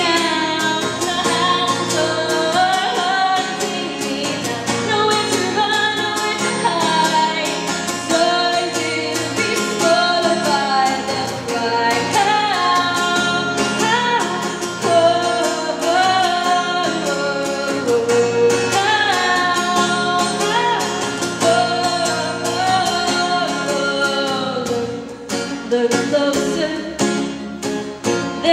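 A woman singing live into a microphone while strumming an acoustic guitar, the voice carrying a wavering melody over a steady strummed rhythm. The playing eases briefly softer near the end.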